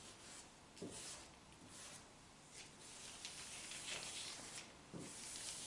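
Marker pen scratching across a paper sketchboard in a series of short faint strokes as letters are written, with two soft thuds, about a second in and near the end.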